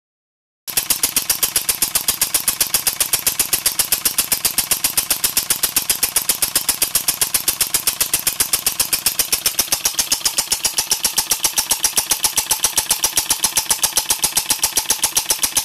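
Two-stroke generator engine converted to run on solenoid valves, starting up just under a second in and then running evenly, with a sharp hissing puff on every stroke, about five or six a second. The noisy valve sound is its auxiliary exhaust, which vents openly here instead of through the muffler.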